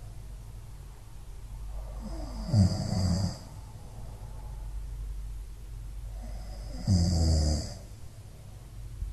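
Domestic cat snoring: two snores about four and a half seconds apart, each lasting about a second.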